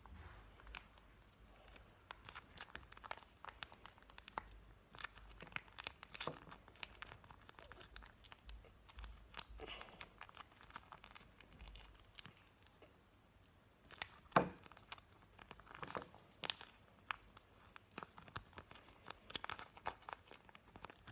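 Plastic packaging crinkling and crackling as a sachet of peel-off face mask is torn open, handled and squeezed into a plastic box, with scattered small clicks and taps and one louder knock about fourteen seconds in.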